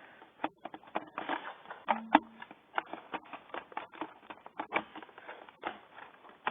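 Irregular light clicks and taps of a PowerBook G3 laptop's plastic case and keys being handled and pressed into place.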